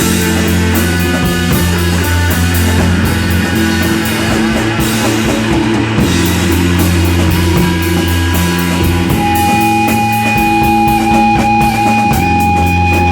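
A rock band playing live, with distorted guitars, bass and drum kit. About two thirds of the way through, a long high note comes in and is held to the end, wavering slightly in pitch.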